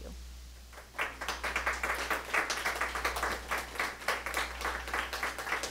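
Congregation applauding, starting about a second in and carrying on steadily.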